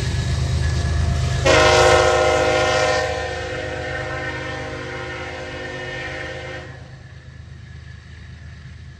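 Diesel freight locomotive sounding its air horn in one long blast of about five seconds, a chord of several steady notes, starting about a second and a half in over the low rumble of the engines working the train uphill. The horn is loudest at first, drops off after a second or so, then cuts off, leaving only a faint rumble.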